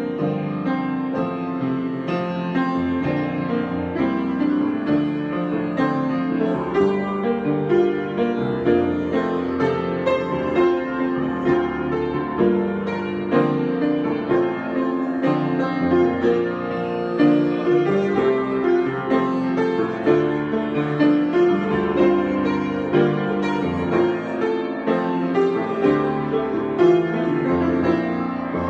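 Solo piano improvisation: a continuous flow of chords and melody notes at a steady level, without pause.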